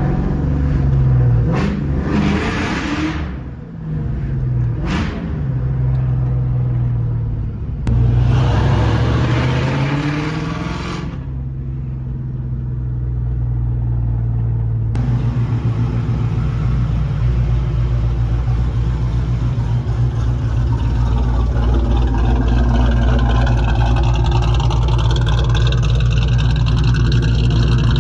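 Supercharged, cammed 2001 Ford Mustang Bullitt 4.6-litre V8 running and being revved: a short rev about two seconds in, a quick blip around five seconds and a longer rev from about eight to eleven seconds, each settling back to idle. From about halfway it changes abruptly to a steady idle with a fast, even pulse.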